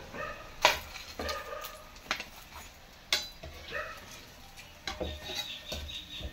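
Metal slotted spoon clinking against a steel frying pan and plate as fried samosas are lifted out of the oil, a few sharp clinks, with faint sizzling of the hot oil.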